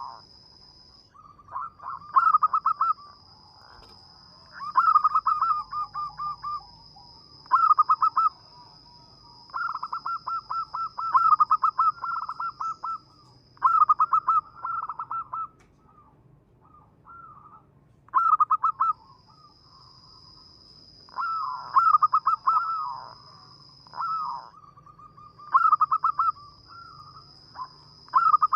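Zebra dove (perkutut) cooing: short, rapidly pulsing coo phrases repeated every few seconds. A fainter steady high-pitched whine runs behind it and breaks off a few times.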